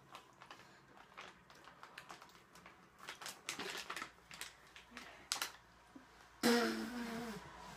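Soft scattered clicks and taps of chewing and fiddling with sweets, then about six and a half seconds in a loud, wordless groan that falls in pitch over about a second, a reaction to a sour jelly bean.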